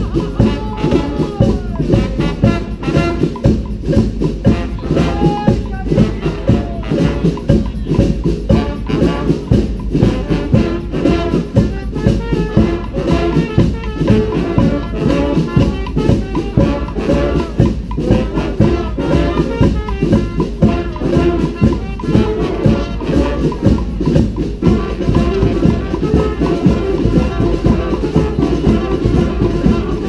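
Street brass band playing a cumbia: trumpets and other horns carry the melody over drums at a steady dance beat.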